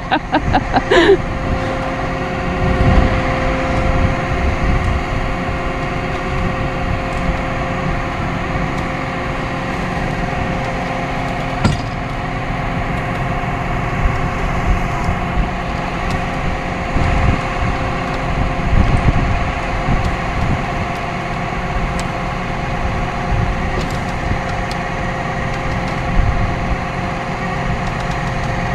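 Tow truck engine running steadily with a steady whine over a low rumble while the car is being pulled up, with a single sharp knock about twelve seconds in.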